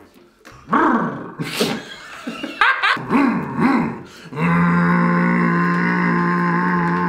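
Men's voices imitating a moped engine: gliding, sputtering revving noises made with the mouth, with some laughter, then a flat, steady buzzing tone held for the last few seconds.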